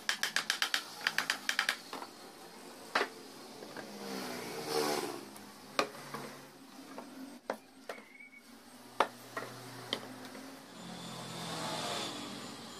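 A hammer tapping rapidly on clamped wooden boards: about a dozen quick knocks in under two seconds, then occasional single knocks.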